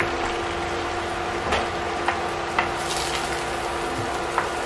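Scrambled eggs sizzling in oil in a frying pan while a wooden spatula stirs them, with a few sharp taps of the spatula against the pan over a steady hum.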